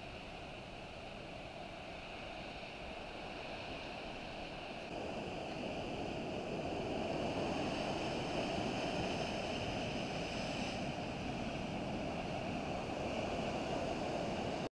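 Sea surf breaking and washing over a rocky shore as a steady rush of noise. It grows louder about five seconds in and cuts off suddenly near the end.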